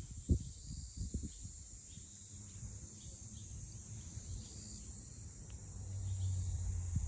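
Outdoor ambience with a steady high-pitched insect drone. A few low knocks come in the first second or so, and a low rumble builds near the end.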